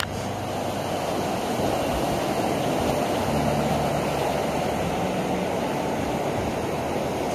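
Steady rush of breaking whitewater from an artificial wave in a wave pool.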